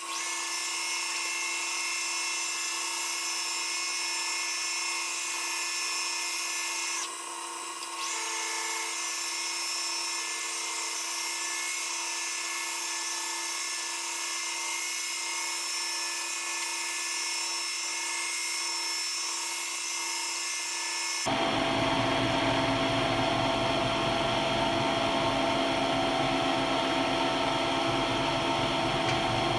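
Metal lathe running under power while machining a pilot bushing: a steady, high-pitched motor whine made of several fixed tones, briefly dipping about seven seconds in. About 21 seconds in the sound switches abruptly to a louder, rougher running noise with a low rumble.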